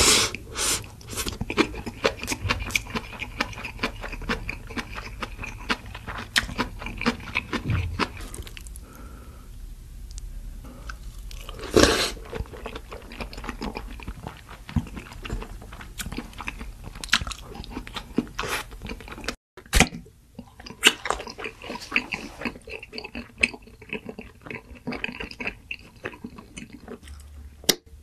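Close-miked eating sounds: food being bitten and chewed with many sharp, crackly crunches in quick succession, broken by a brief gap about two-thirds of the way through.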